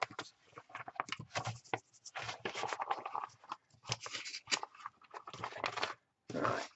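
A large crinkly craft mat being slid across the table and under sheets of paper, rustling and scraping irregularly with brief pauses.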